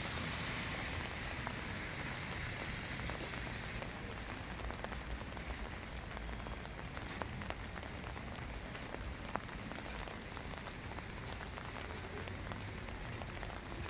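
Light rain falling steadily: an even hiss with scattered single drops ticking sharply throughout.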